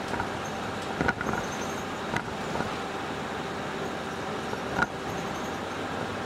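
Route bus running along a road, heard from inside the cabin: steady engine and road noise, with a few short knocks or rattles, the sharpest just before five seconds in.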